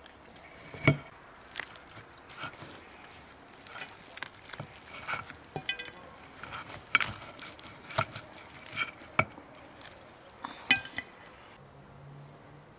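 Metal cutlery clinking and scraping against a china plate while roast goose is carved, about a dozen sharp clinks at irregular intervals, a couple ringing briefly.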